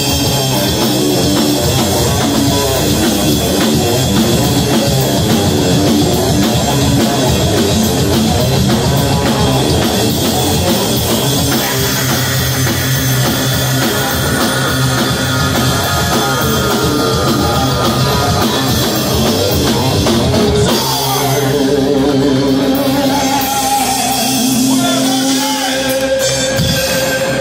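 Thrash metal band playing live: distorted electric guitars, bass and fast drum-kit drumming. About twenty seconds in, the fast playing gives way to long held notes.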